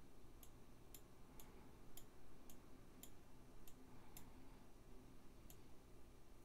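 Faint computer mouse clicks, about nine sharp clicks at roughly two a second that stop near the end, over near silence.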